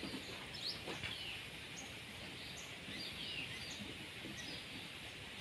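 Faint, short bird chirps scattered over steady outdoor background noise.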